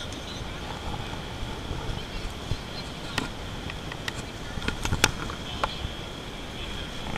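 Busy exhibition-hall background: distant crowd chatter and a steady hum, with a faint steady high tone. Scattered sharp clicks and knocks in the second half come from the handheld camera being turned and handled.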